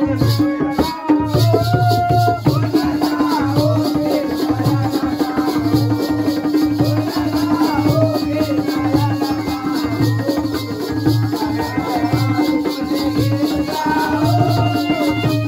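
Folk music for a Balya (Jakhadi) dance: a voice sings over a steady drone, with a regular drum beat about twice a second and a quick, steady jingling rattle.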